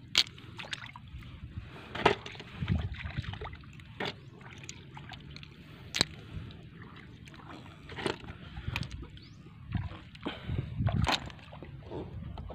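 Hands sloshing and squelching in shallow muddy water while picking snails out of the mud, with sharp clicks about every two seconds.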